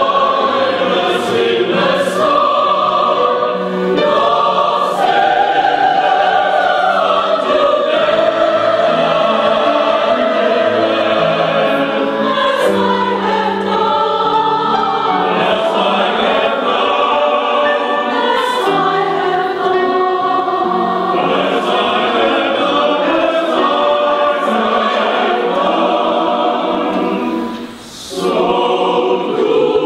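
Mixed choir of men's and women's voices singing a hymn in parts, with a brief break for breath near the end.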